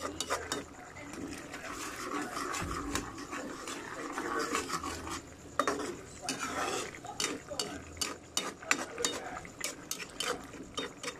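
Metal spatula stirring and scraping thick kare-kare sauce in a stainless steel frying pan, with frequent irregular clicks of metal on the pan.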